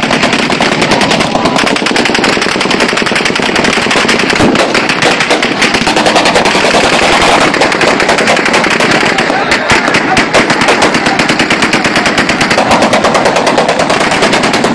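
Celebratory automatic gunfire shot into the air: rapid shots follow one another almost without a break.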